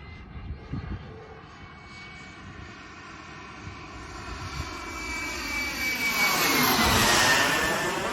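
Turbine-powered Avanti RC model jet making a flyby: the high turbine whine and rush of air build up and peak about seven seconds in, and the whine drops in pitch as the jet passes.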